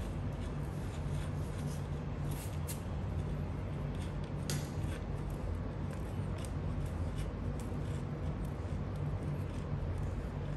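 Scattered small clicks and rubbing from fingers handling an LED light strip and plastic trim on an electric scooter's frame, over a steady low hum.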